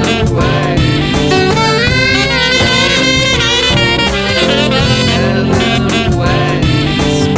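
Instrumental passage of a song with no singing: a lead melody line over a full band.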